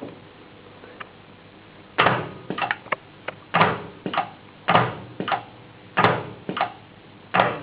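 Home-built pneumatic gearshift actuator firing over and over: sharp clunk-and-hiss shifts about once a second, each followed by a lighter one about half a second later. They start about two seconds in, after a single faint tick.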